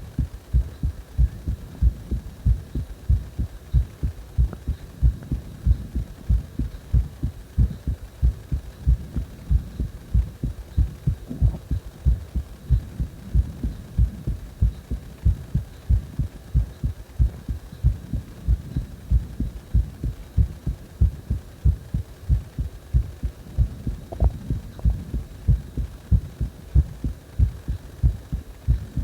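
Heart sounds: a steady, even lub-dub heartbeat of low thumps, with strong breathing sounds mixed in.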